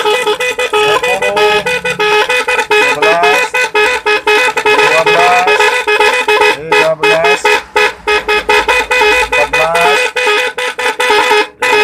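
Motorcycle snail horn with a multi-sound module sounding its electronic patterns: a loud, fast-stuttering tone with short rising siren-like glides repeating every second or two, briefly cutting out between patterns.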